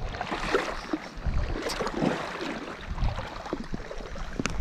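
Wind rumbling unevenly on a body-worn camera's microphone over a wash of river water and rain, with scattered small knocks.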